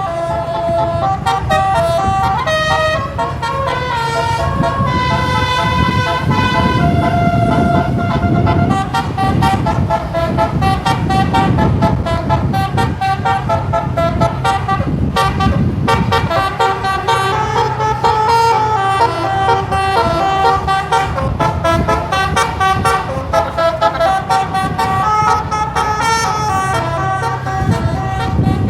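Bus 'telolet' horn, a multi-tone air horn, playing a long run of melodic notes that step up and down in pitch, over the low rumble of the bus and road noise.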